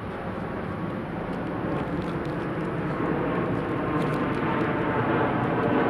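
A distant engine drone that grows steadily louder, with a faint pitched hum emerging in it.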